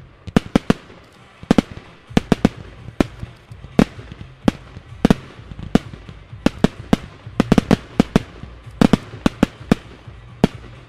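Fireworks going off: a rapid, irregular string of sharp bangs as small shells burst overhead, about three a second, often two or three in quick succession.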